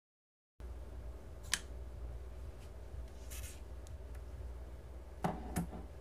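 A titanium flipper folding knife being handled on a wooden tabletop: a sharp metallic click about a second and a half in, a brief scrape, faint ticks, then two clicks with a low knock near the end as it is set down.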